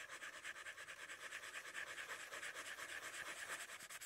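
A Sharpie marker scribbling on paper in quick back-and-forth shading strokes, several a second, making a faint dry, scratchy rasp.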